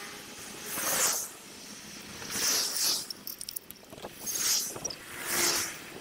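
Wind and road noise on a bicycle's handlebar action camera, sped up sixfold, coming in rushes that swell and fade about once a second.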